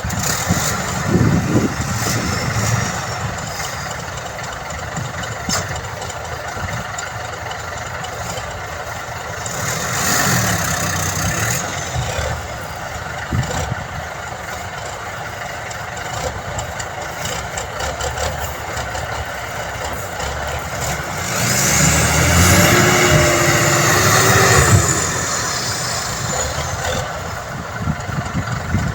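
Heavy diesel truck engine running steadily. It gets louder briefly about ten seconds in, and again for a few seconds near the end, where a high whine rises and then falls.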